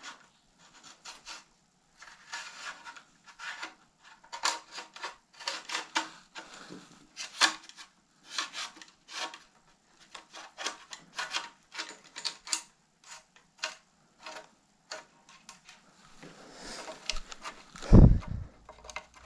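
A brake line being pulled through the inside of a carbon bicycle frame: a run of irregular rubbing and scraping strokes as it slides through the frame's internal routing. A loud low thump comes near the end.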